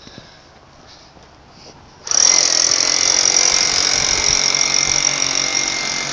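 An electric power tool starts up about two seconds in and runs steadily with a high whine.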